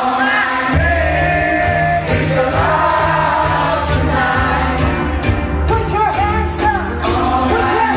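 Live pop-rock music with a singer holding long notes over sustained chords; a heavy bass comes in under the vocals less than a second in.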